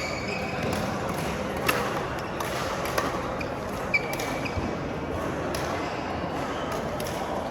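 Badminton rally: rackets striking the shuttlecock in three sharp hits about a second apart, with short squeaks of shoes on the court floor over a steady background of hall noise.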